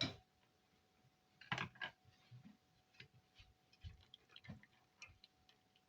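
Quiet room with a faint steady hum and a handful of scattered light clicks and knocks, as kitchen things are handled.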